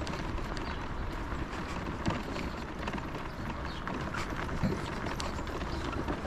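Steady crunching and scraping of travel over a snowy, slushy path, with a low rumble underneath.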